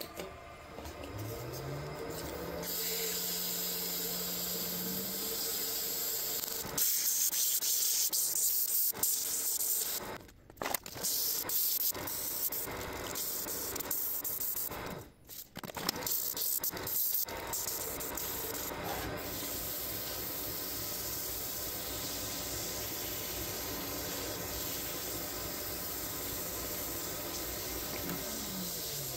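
Wood lathe motor spinning up, then sandpaper held by hand against a spinning tulip poplar workpiece: a steady hiss of sanding, broken briefly twice as the paper is lifted off. Near the end the lathe's hum falls in pitch as it spins down.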